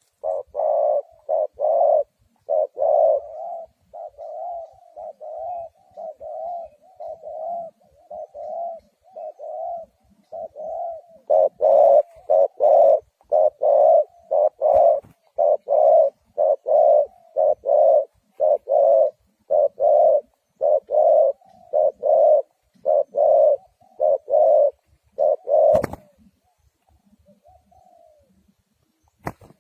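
Spotted dove cooing: a long run of short coos, about two a second, softer for a few seconds and then louder again. The cooing stops near the end, followed by a sharp click.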